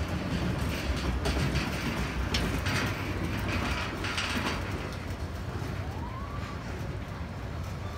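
A small family roller coaster's cars rumbling along the steel track, a steady low rumble with a few short louder noisy bursts in the first half. A brief rising tone about six seconds in.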